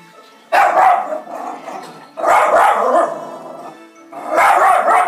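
Jack Russell terrier barking frantically at a television commercial, three loud bouts about two seconds apart.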